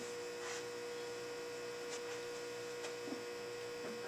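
Steady electrical mains hum with one clear, steady mid-pitched tone over faint background noise, and a few faint, brief soft sounds.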